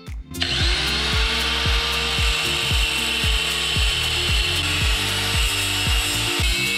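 Chicago Electric angle grinder with a cut-off wheel spinning up about half a second in and cutting through a motorcycle's steel drive chain: a steady, loud grinding whine. Background music with a steady beat plays underneath.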